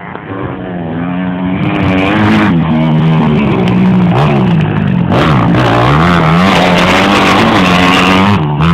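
Motocross bike engine revving hard, its pitch rising and falling again and again as the throttle is worked; it grows louder over the first second or two.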